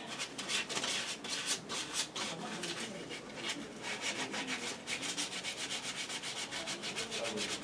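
Rapid, evenly repeated back-and-forth scraping strokes on the engine's metal, cleaning off the stuck remnants of a broken gasket.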